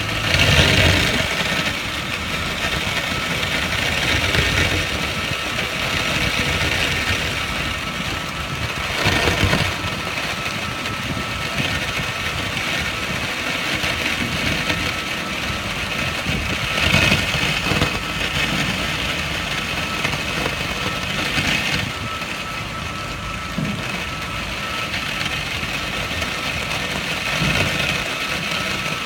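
Water jet of about 100 litres a minute from a hose nozzle spraying onto a metal junction box in an IP waterproof jet test: a steady rushing hiss with a thin steady whine underneath, swelling louder now and then.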